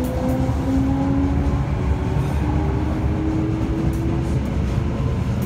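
Toei 5300 series subway car's Mitsubishi GTO-VVVF inverter and traction motors whining as the train gathers speed, heard from inside the car. The tones rise slowly in pitch and change in steps over the steady low rumble of the wheels on the track.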